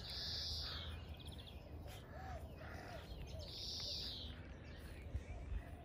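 A bird calling twice, each call a short high note falling in pitch, about three seconds apart, with a few softer chirps between, over a faint low outdoor rumble.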